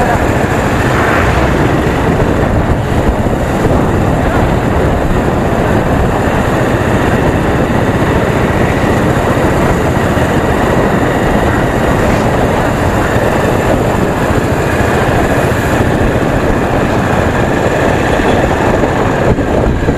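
Steady rush of wind and road noise on a camera riding on a moving Bajaj Pulsar 220F motorcycle, with the bike running underneath.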